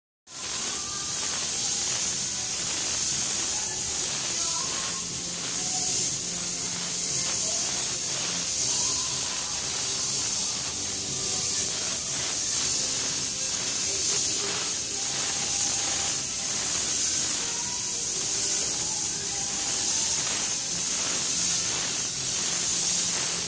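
Compressed-air gravity-feed spray gun hissing steadily as it sprays black paint onto a panel.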